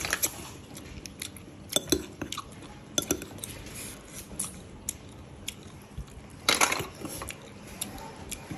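A metal spoon clinking and scraping against a ceramic bowl as it turns snails and sliced vegetables over in sauce. There are scattered sharp clinks, and a louder run of them about six and a half seconds in.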